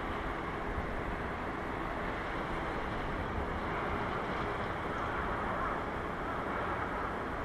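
Steady distant outdoor hum with light wind on the microphone, swelling slightly about four to six seconds in.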